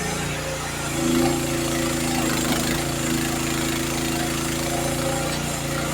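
Youtop YT15 mini excavator's engine running steadily, growing a little louder about a second in.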